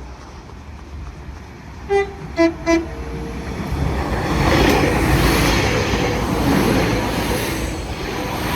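A West Midlands Railway Class 196 diesel multiple unit sounds its horn in three short blasts about two seconds in, the first a little higher than the other two. It then passes at speed, its engine and wheel noise swelling loudly and easing off near the end.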